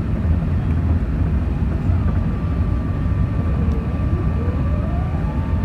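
Steady low roar of an Airbus A380 cabin on approach with flaps extended. A fainter steady whine comes in about two seconds in, and a second whine rises in pitch about four seconds in and then holds.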